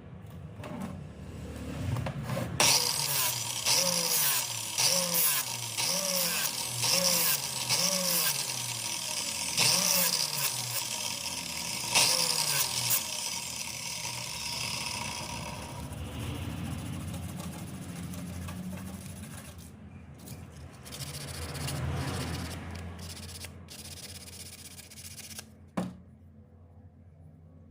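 Motorcycle engine with freshly smoothed rocker arms, revved in quick repeated throttle blips about once a second and then settling to a steadier lower run. A sharp click near the end is followed by the sound dropping away. The engine note is smooth, without the tappet clatter that had been the fault.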